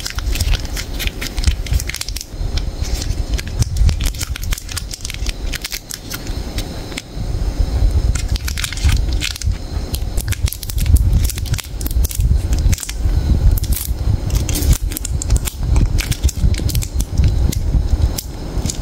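Foil wrappers of mini Toblerone chocolates being twisted and peeled open by hand: dense, irregular crinkling and crackling, over a low rumble.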